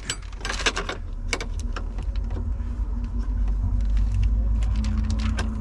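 Scattered metallic clicks over a steady low rumble as a wrench works a nut welded onto a sheared lag-bolt stub, trying to back the bolt out. The weld does not hold. A steady low hum comes in near the end.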